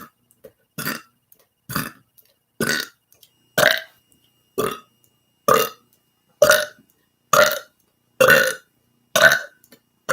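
A person burping over and over: about eleven short burps in an even rhythm, roughly one a second.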